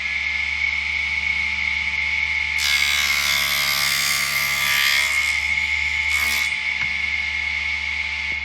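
4-inch mini table saw running with a steady high whine. About two and a half seconds in, the blade cuts through a piece of wood for about two and a half seconds, then spins free again, with a brief second touch of wood a little later.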